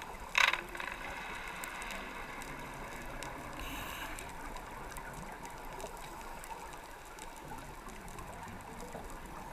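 Underwater ambience on a reef dive with a scuba regulator breathing cycle. About half a second in there is a sharp loud burst, then gurgling exhaust bubbles for a second or so, and a brief hiss near four seconds.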